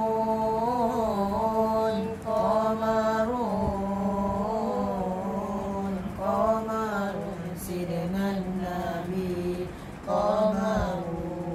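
A boy's voice chanting a nazam, an Islamic devotional song, in long drawn-out melismatic notes that slide between pitches. There are short breaks between phrases about two seconds in and near ten seconds.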